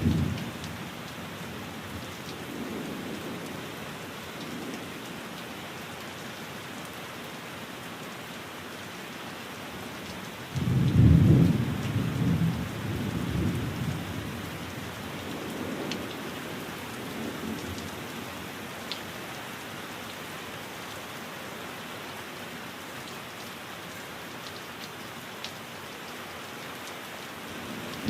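Steady rain falling, with rolling thunder: a loud rumble starts suddenly about ten seconds in and fades over several seconds, and fainter rumbles come and go before and after it.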